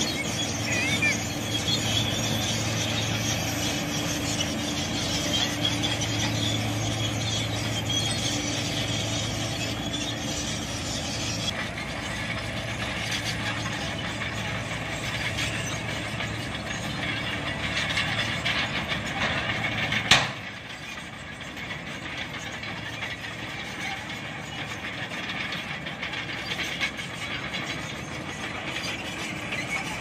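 Diesel engines of heavy road-construction machines running steadily: a single-drum road roller, then a Shantui crawler bulldozer. A sharp knock comes about twenty seconds in, after which the engine sound is quieter.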